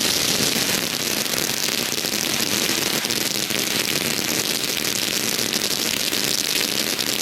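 Fireworks crackling: a dense, continuous crackle of many small pops.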